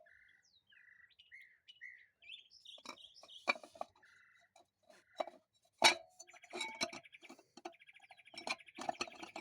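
Small birds chirping, then a fast trill from about six and a half seconds in. Over them come a few sharp metal clinks and knocks, the loudest about six seconds in, from parts being worked into a 4L60E transmission case.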